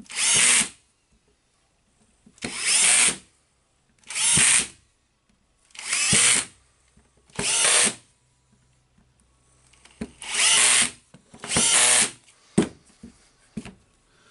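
Cordless drill-driver running in short bursts to drive screws into a power tool's housing: about seven runs of under a second each with pauses between, then a sharp click near the end.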